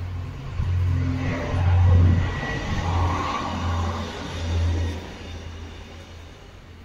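Stadler GTW diesel multiple unit passing by: a low engine hum that swells about two seconds in and dies away after about five seconds.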